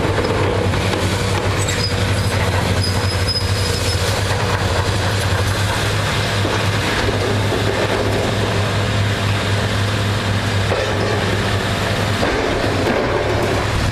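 Demolition excavators, a Cat 329E LN among them, working with their diesel engines running steadily under a continuous grinding and scraping of concrete and steel debris. A brief thin metallic squeal comes about three seconds in.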